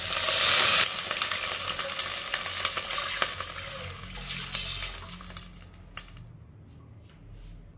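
Water poured from a jug into a hot pot of fried garlic slices: a loud sizzling hiss as it first hits the hot oil, then pouring and fizzing that die away about six seconds in.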